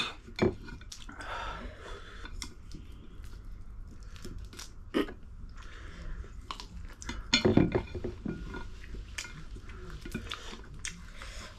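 Close-miked eating: chewing and biting of food, with scattered sharp clicks of cutlery against dishes. A few louder knocks stand out, the loudest about seven and a half seconds in.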